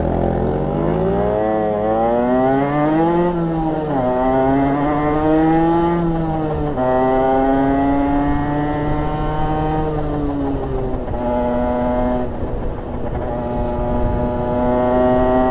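Rieju RS2 50's 50cc two-stroke engine with an aftermarket exhaust, pulling away under acceleration. The revs climb and drop sharply at each up-shift, three times, then hold near a steady cruise and edge up again near the end.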